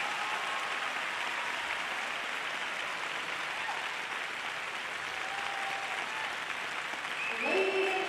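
Arena crowd applauding steadily at the end of a figure skating program, with a few faint cheers or whistles. A voice begins about seven seconds in.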